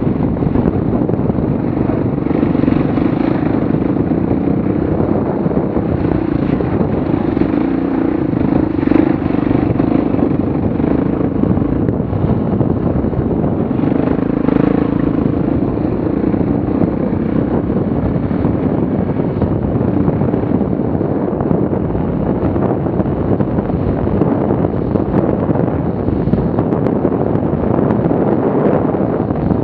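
Yamaha XT500's single-cylinder four-stroke engine running steadily under way, its pitch rising and falling a little with the throttle.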